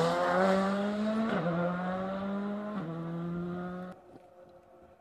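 Rally car engine accelerating hard out of a tight corner. The note climbs, drops at two upshifts, then falls away sharply about four seconds in.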